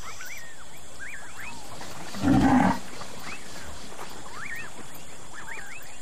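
A jaguar growls once, a short low sound of about half a second a little over two seconds in, over a background of many short, repeated rising-and-falling chirping calls.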